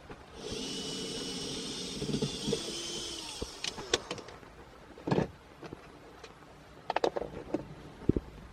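A small electric motor whirs steadily for about three seconds, then stops, followed by a series of light clicks and knocks.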